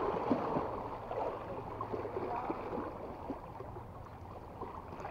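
Sea water sloshing and gurgling around shoreline rocks, slowly getting quieter, with a few small ticks from a cast net's rope being hauled in by hand.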